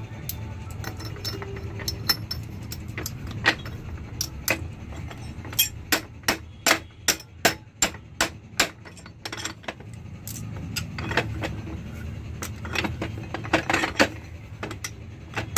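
Metal-on-metal knocks and clinks as a CV joint is struck and worked onto an axle shaft: a run of sharp knocks, about three a second, through the middle, then more clinking near the end. A steady low hum runs underneath.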